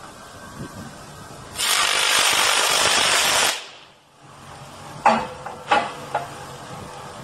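A high-voltage substation disconnector switch opens and draws an electric arc, which makes a loud steady hiss for about two seconds before it dies out. Three sharp cracks follow, and a faint low hum remains.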